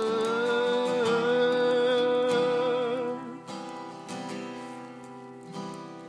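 Two acoustic guitars strumming chords under a man's voice holding the last sung note for about three seconds; then the guitars carry on alone, quieter.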